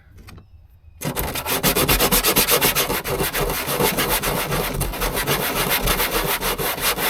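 Rapid, steady rubbing and rasping on wood, starting about a second in and keeping up a dense stroke-like rhythm: work on the rough edge of a freshly drilled hole in the wooden jukebox cabinet.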